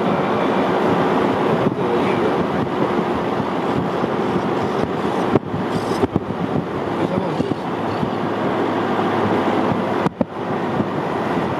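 Wind rushing over the microphone together with road noise of a car driving at speed on an asphalt highway, a steady rushing noise that dips briefly twice.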